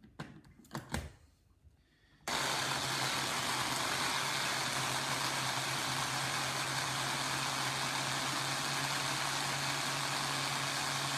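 A few light knocks, then about two seconds in a small electric blender's motor starts and runs at a steady high speed, puréeing onion, garlic and egg fine.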